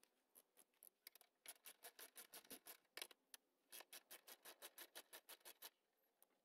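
Faint, regular clicking of a hand ratchet wrench working a bolt on the upper radiator support bracket, about five clicks a second. It starts about a second and a half in, pauses briefly in the middle, and stops a little before the end.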